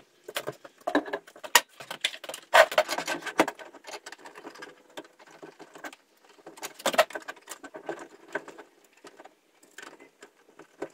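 Irregular clicking, scraping and rattling of hands working small metal parts at the bottom of a wall-mounted solar charge controller, busiest a couple of seconds in and again around the middle.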